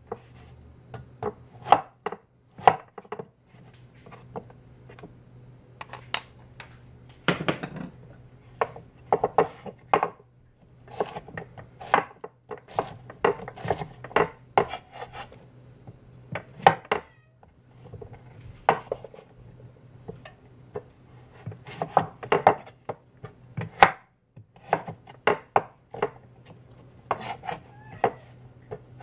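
Chef's knife chopping zucchini on a wooden cutting board: irregular runs of sharp knocks as the blade strikes the board, broken by short pauses.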